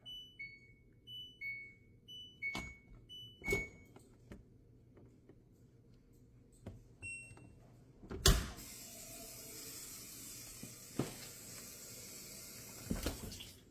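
LG dishwasher control panel giving a run of short electronic beeps in two alternating pitches, with light clicks, as its buttons are pressed, and one more beep about 7 seconds in. About 8 seconds in comes a sharp thump, then the steady run of the drain pump emptying the water from the tub.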